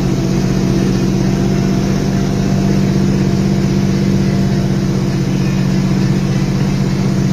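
Vehicle engine running steadily at a constant pitch with road noise, a low, even drone heard from inside the vehicle.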